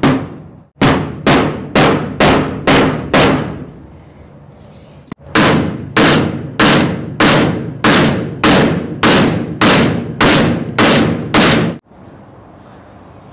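Hammer blows, about two a second, driving a part home in a Cummins vacuum pump being rebuilt. A run of about seven strikes, a pause of about two seconds, then about a dozen more, each with a short ring.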